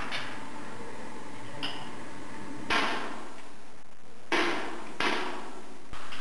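Rifle shots on a shooting range, three loud reports and a fainter one at uneven intervals, each followed by a brief echo.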